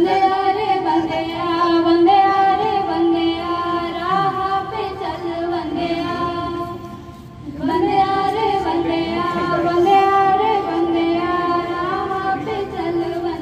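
Female voice singing a slow melody into a microphone, with long held notes in two phrases and a short break for breath about seven seconds in.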